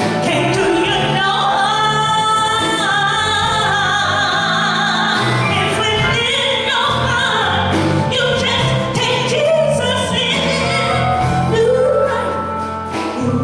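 Female gospel soloist singing drawn-out, wordless runs and held notes over instrumental accompaniment.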